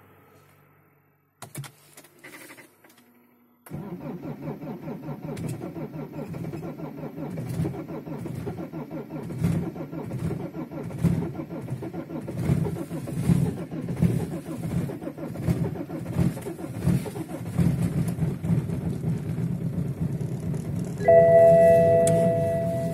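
BMW E90 320d four-cylinder diesel cold-starting at about −11 °C: a few faint clicks, then the engine catches suddenly and settles into a steady idle with an even low pulse. Near the end a steady electronic warning tone from the car sounds over the idle.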